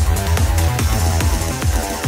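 Psychedelic trance music played loud through a live venue's sound system: a steady kick drum a little over twice a second under a dense electronic mix.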